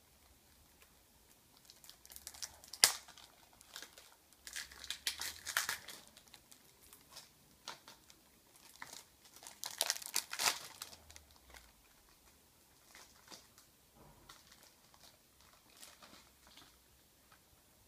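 Plastic shrink-wrap being torn and crumpled off a CD case, crinkling in irregular bursts. There is a sharp snap about three seconds in and louder spells of crinkling around five and ten seconds in, fading to faint crackles near the end.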